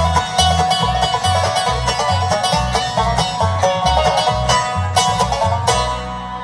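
Bluegrass band playing live: banjo, guitar, mandolin and fiddle over an upright bass walking an alternating beat about two notes a second. Near the end the band lands on a final chord that rings out as the song ends.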